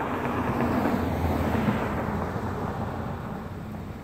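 A vehicle driving past, its engine and tyre noise swelling to a peak about a second and a half in, then fading away.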